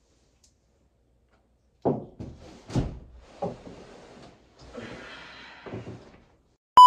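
A run of thuds and knocks against an interior door, about four of them over four seconds, with a scraping rustle between them. Near the end a loud, steady electronic beep cuts in.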